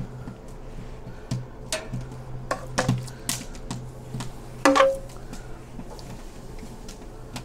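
Metal tongs clicking and clinking against an offset smoker's steel cooking grate and a tray as pieces of meat are set down: a handful of sharp knocks, the loudest a ringing clink about four and a half seconds in.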